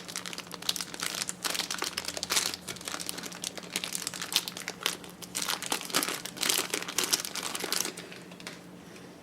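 Packaging crinkling and rustling as a small accessory is handled and unwrapped by hand, a dense run of crackles that dies away about a second before the end.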